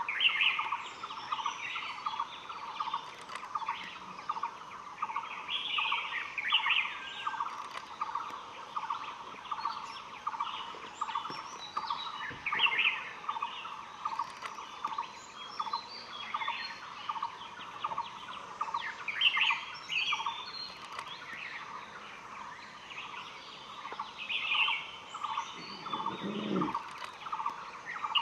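Forest birdsong: one note repeated evenly at a single pitch, two or three times a second without a break, with short higher song phrases from other birds every few seconds. A brief low sound comes near the end.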